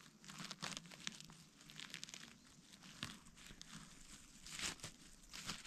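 Rustling and crackling of forest-floor litter (leaves, moss and twigs) in irregular bursts, with a few sharper snaps.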